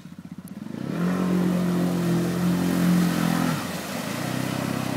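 Yamaha Grizzly 700 ATV's single-cylinder engine idling, then revved up about a second in and held steady for two or three seconds before easing back, with its wheels churning through deep water.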